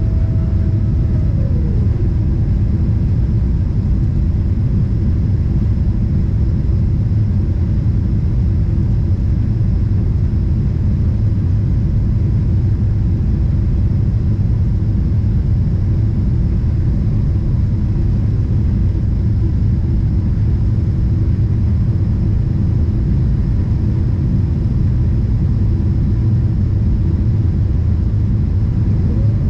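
Cabin noise of a Boeing 777-300ER climbing after takeoff: the steady low rumble of its GE90-115B engines and the airflow, heard from inside the cabin. A mid-pitched whine in the background glides down and fades out about a second or two in, then comes back near the end.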